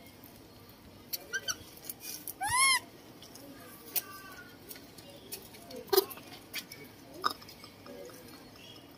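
Young macaque giving short arched coo calls: two faint ones about a second in, then a louder one near three seconds. Scattered sharp clicks and taps follow.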